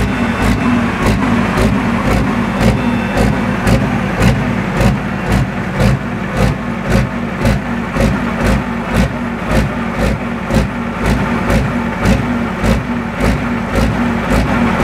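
Pro stock pulling tractor's turbocharged diesel engine running, with a regular pulse about twice a second.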